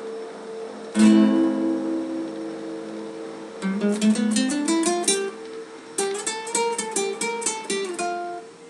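Solo acoustic guitar playing: a chord strummed about a second in and left ringing, then quick runs of picked notes.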